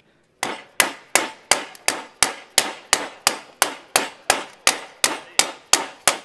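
Steady hammering on a hand-formed aluminium panel, about three sharp blows a second, each with a short metallic ring. It starts about half a second in. The panel is being straightened so it sits right.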